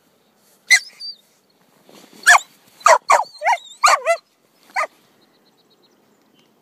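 Australian shepherd puppy barking: about eight short, high-pitched barks, with a cluster in quick succession in the middle.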